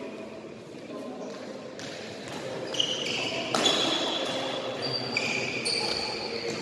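Badminton rally in a large hall: a few sharp racket strikes on the shuttlecock and several brief, high squeaks of sports shoes on the synthetic court floor.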